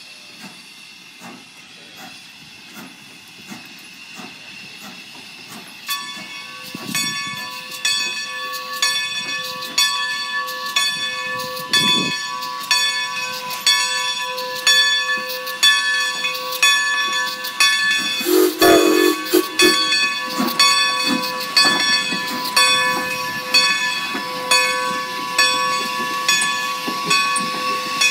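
Steam locomotive, the 2-10-0 Decapod No. 90, running slowly past with steam hissing and an even beat of about one and a half strokes a second. It grows much louder about six seconds in as it draws near, with a steady high squeal over it and one short, loud blast a little past halfway.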